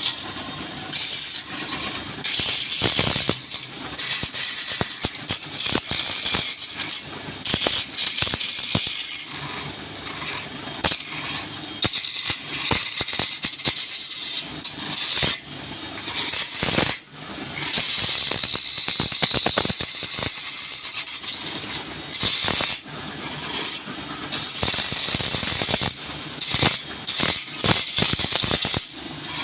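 Turning tool cutting wood spinning on a lathe, a high scraping hiss that comes and goes in short passes of a second or two, with rattles and clicks.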